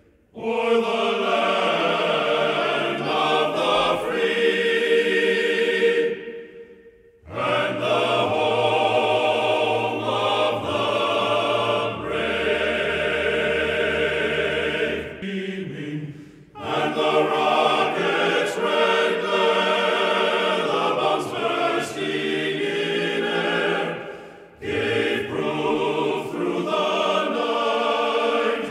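Choral music: voices singing long, held chords in phrases, with three brief breaks between phrases.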